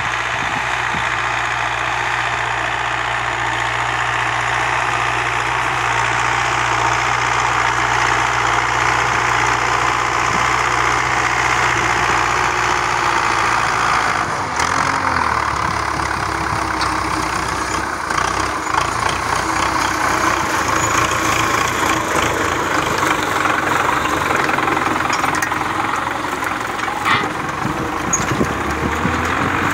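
Farm tractor's diesel engine running steadily under load as it pulls a disc harrow through ploughed soil, growing louder as it comes close.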